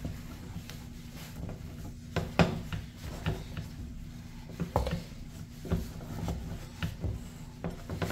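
Wooden spatula stirring and pounding thick fufu dough in a small metal saucepan: rubbing and scraping with irregular knocks against the pot, the loudest about two and a half seconds in.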